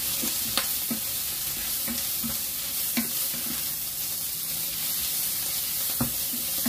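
Shredded chicken breast sizzling in hot oil in a nonstick frying pan while being stirred with a wooden spatula: a steady sizzle with a handful of short knocks and scrapes of the spatula against the pan.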